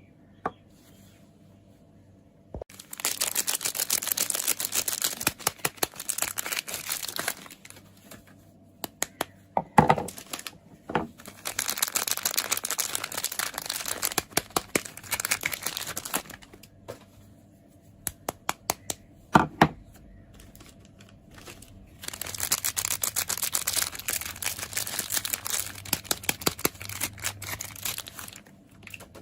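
Soap packaging crinkling and tearing as it is unwrapped by hand, in three long stretches with a few sharp taps in between.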